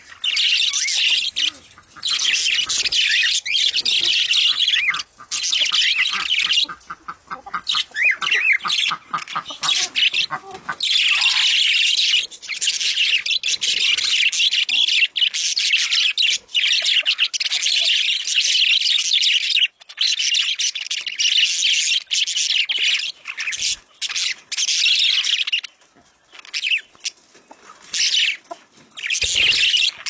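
Show-type budgerigars chattering and warbling: dense, fast chirping with a few brief breaks.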